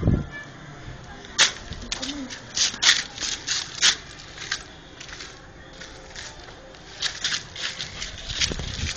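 Irregular scuffing, scraping and crackling of bodies, hands and clothes against rough brick, plaster and grit as people squeeze through a hole in a wall. The crackles come in clusters and stand out sharply over a steady background.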